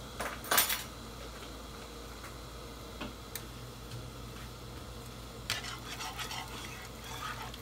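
Cookware and utensils clattering at the stove: a sharp clink about half a second in, a few light ticks, then a stretch of rattling knocks against a pan near the end, over a steady low hiss.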